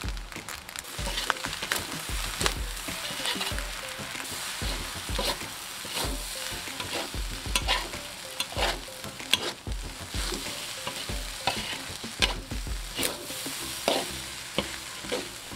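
Fried rice sizzling in a metal wok while a metal spatula stirs and tosses it, with irregular scrapes and clacks of the spatula against the pan.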